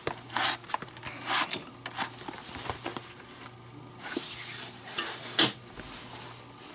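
Leather lace being pulled through a baseball glove's web: a series of short swishing rasps, about half a second each, with a few light clicks in between.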